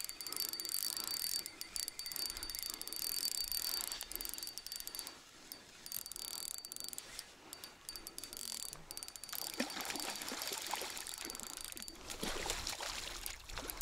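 Spinning reel being cranked to retrieve a lure: a faint mechanical whirring and clicking, with a thin high whine through the first few seconds.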